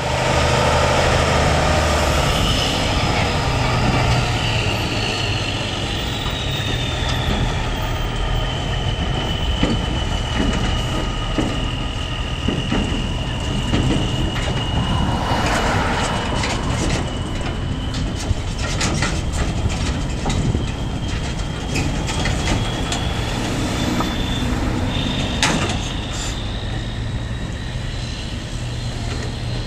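Kenworth semi truck's diesel engine running as it moves slowly off, towing two belly-dump trailers, with scattered sharp metallic clanks and rattles, one loud one near the end. A faint high whine slowly drifts in pitch.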